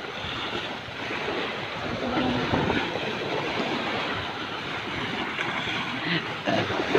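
Wind buffeting the microphone over small waves washing onto a muddy shore, a steady rushing noise.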